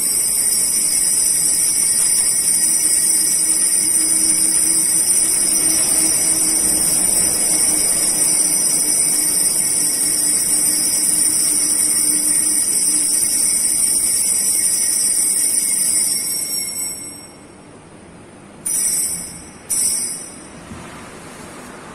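Altar bell ringing continuously for the elevation of the host and chalice at the consecration, then stopping about 17 seconds in, followed by two short rings.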